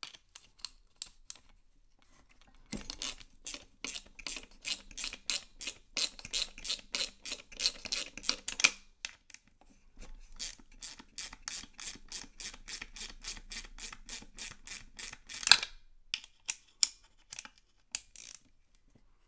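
Micro ratchet with a 5/16 socket clicking in two long quick runs of about five clicks a second as it turns a long bolt on a vintage chainsaw's carburetor housing, then a single sharper click and a few scattered ones near the end.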